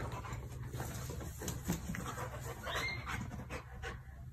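A large fluffy dog rolling on its back on a stone-and-gravel patio: a string of soft rustles and scrapes with its breathing, and one brief high whine about three seconds in.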